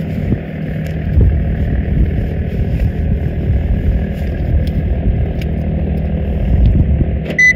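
An engine runs steadily with a low hum, and a short high beep sounds near the end, the car's remote-lock chirp as the key fob is pressed.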